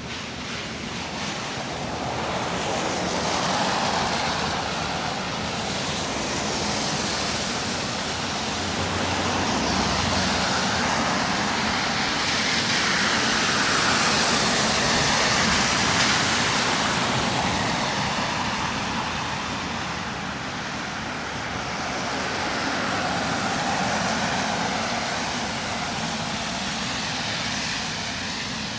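Road traffic going past, a steady rush of tyre noise that swells and eases several times as vehicles pass.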